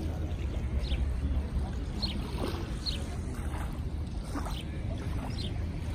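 Lakeshore ambience: water lapping at the shore under a steady low rumble, with brief high chirps scattered through.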